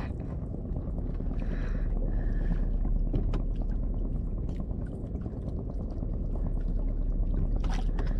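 Steady low rumble and wash of a small boat at sea, with scattered faint light clicks as a small jig lure is handled.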